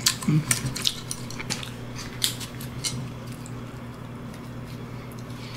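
Boiled crab being picked apart by gloved fingers: a run of sharp clicks and crackles of shell in the first few seconds, then only a steady low hum.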